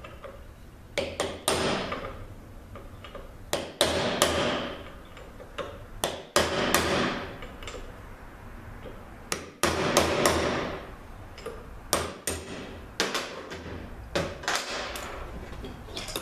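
Ball-peen hammer striking a bushing driver to drive a bushing into a steel part of a ZF 6HP26 automatic transmission. About a dozen unevenly spaced metallic blows, each ringing briefly.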